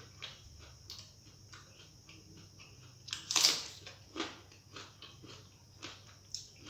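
Close-up eating sounds: chewing and small wet mouth clicks from a mouthful of rice with dal, fish curry and fried vegetables, with one louder hissing burst about halfway through.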